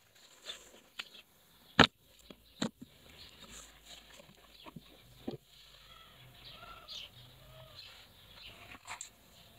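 Hard plastic pistol case being handled, unlatched and opened: a few sharp plastic clicks and knocks, the loudest about two seconds in, with smaller ones later. Faint bird chirps in the background.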